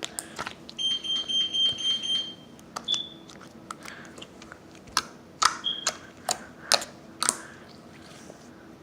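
Hand-worked slime squelching, with a series of sharp pops as air pockets burst. About a second in, a steady high beep-like tone holds for about a second and a half, and a few short high blips follow.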